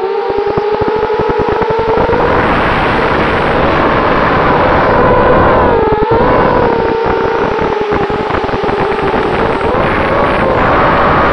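Eachine Falcon 250 racing quadcopter's brushless motors and propellers whining, heard from its onboard camera with heavy wind rush on the microphone. The many-toned whine rises and falls in pitch with the throttle: it dips about six seconds in and swells again near the end.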